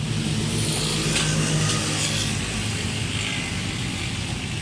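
A vehicle engine running steadily at a low, even speed.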